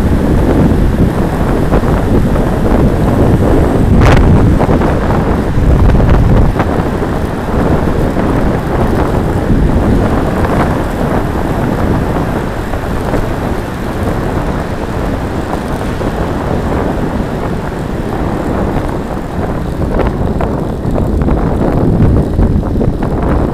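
Heavy wind rush buffeting the microphone of a camera on a road bike riding at speed. It stays loud and unbroken, a low rumbling rush.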